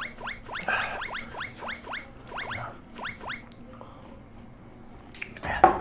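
Short, high, rising squeaky whimpers in quick runs of three or four, from a man in pain from extremely hot Death Sauce food. A single sharp, loud sound near the end.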